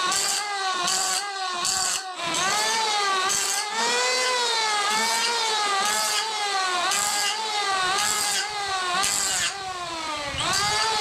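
A power tool's motor whining as it works on the steel of a wood chisel. Its pitch dips and recovers about once a second as it is loaded, with short bursts of hiss at each contact.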